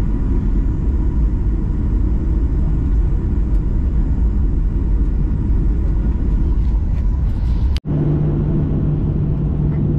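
Cabin noise of a Boeing 737-900ER on the runway: steady low rumble of its CFM56-7B engines and wheels. The sound cuts out for an instant near the end and comes back with a steady low hum added.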